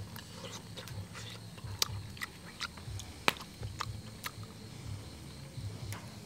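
A person chewing grilled abalone close to the microphone, with wet mouth clicks and smacks scattered through; the sharpest click comes a little over three seconds in. The meat is chewy.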